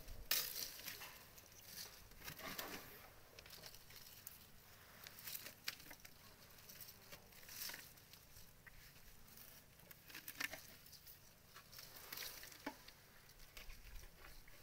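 Dry cut branches and twigs rustling and crackling as an African elephant feeds on them and shifts among them. The crackles are faint and irregular, the loudest just after the start.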